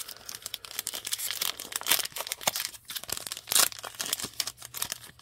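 Foil wrapper of a 2023 Donruss football card pack crinkling and crackling as it is torn open by hand, in quick uneven crackles with a sharp rip about three and a half seconds in.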